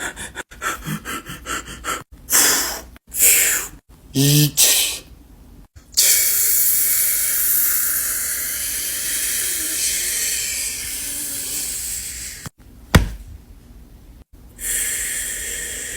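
Heavy panting and gasping breaths, then a long steady hiss lasting about six seconds that slowly fades, broken by a sharp click, with a fainter hiss near the end.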